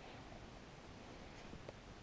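Near silence: faint room tone in a small bathroom, with one faint click near the end.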